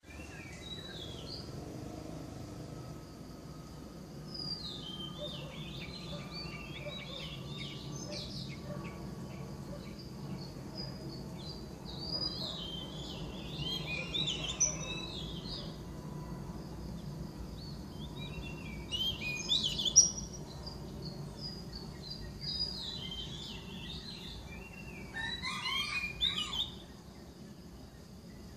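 Several birds chirping and calling in repeated bursts of quick, high notes, over a low steady background hum.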